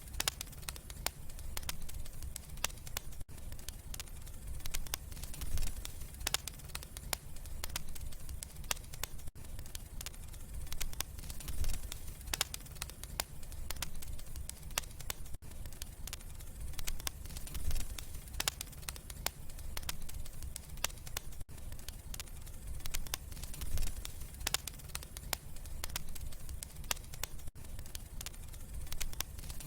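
Wood fire crackling and popping in a fireplace, with irregular sharp snaps over a steady low rumble of the flames. There is a brief dropout about every six seconds.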